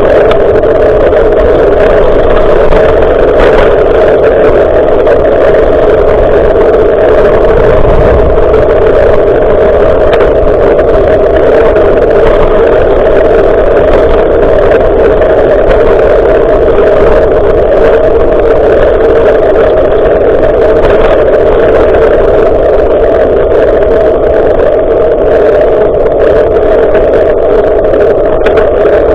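Wind and riding noise rushing over a bicycle-mounted action camera's microphone, a loud, steady rumble that never lets up.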